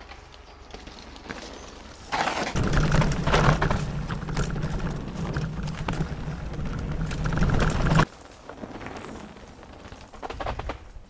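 Mountain bike descending a dirt trail, heard through an action camera: wind buffeting the microphone with the rumble and rattle of the bike. It gets loud about two seconds in and cuts off suddenly after about six seconds, leaving a quieter stretch with a few clicks and knocks.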